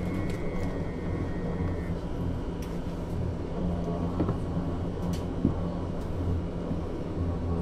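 2001 Berkhof Premier AT 18 articulated trolleybus, a steady low hum with scattered small clicks and rattles; a thin, steady high whine stops about two seconds in.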